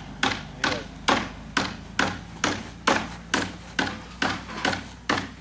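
An even rhythm of sharp strikes, about two and a half a second, each dying away quickly, over a steady low hum.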